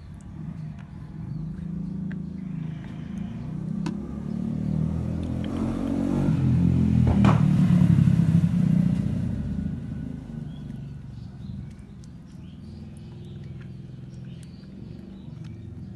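A motor vehicle passing by: its low engine rumble grows louder to a peak about seven or eight seconds in, then fades away.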